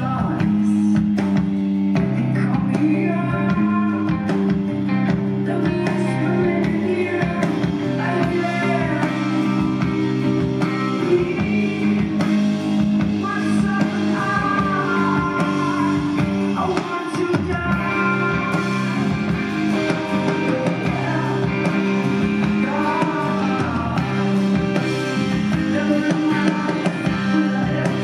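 Live band playing a slow rock song: a woman singing into a microphone over electric guitar and drums.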